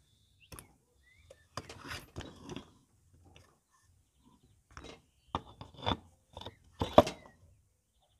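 Scooter rear wheel, a rusty steel rim with its tyre, being handled: a few irregular knocks, scrapes and rubs, the loudest knock about seven seconds in.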